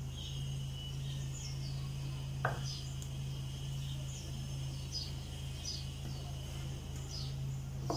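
Short high chirps, falling in pitch, repeat about once a second, typical of a small bird calling, over a steady low hum. A thin steady high whine fades out after about three seconds, and a single sharp click sounds about two and a half seconds in.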